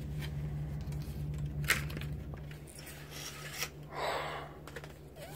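Small packaged craft items being handled: a few light clicks and two short spells of packaging rustle, over a steady low electrical hum.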